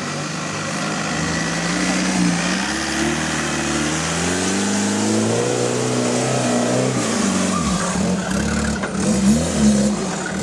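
Off-road 4x4 buggy's engine revving hard under load as it climbs a steep dirt bank, the pitch rising and falling with the throttle, with quick rev blips near the end.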